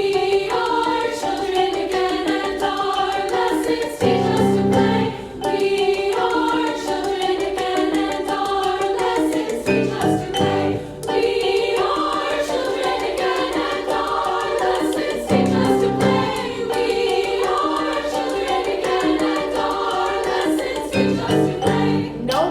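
A choir singing layered, held chords over instrumental accompaniment, with a deep low note returning about every five or six seconds.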